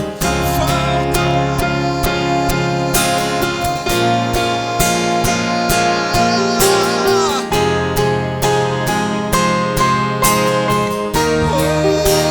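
Instrumental passage of a Christian gospel song: acoustic guitar strumming chords over a full band accompaniment.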